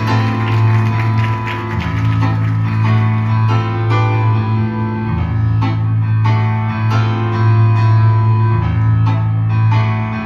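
Instrumental song introduction played on a stage keyboard: many quick note attacks over steady held bass notes.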